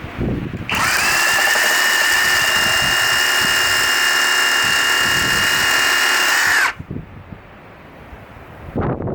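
Ozito PXC 18V brushless reciprocating saw running at a steady speed for about six seconds, a high whine that spins up about a second in and winds down near the end.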